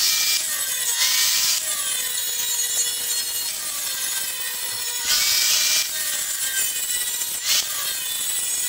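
Angle grinder with an abrasive wheel grinding down a welded steel end cap on square tubing: a steady motor whine under a harsh grinding hiss that swells in short surges as the wheel is pressed into the weld, with the motor pitch rising back several times as pressure eases. The weld is being shaped smooth.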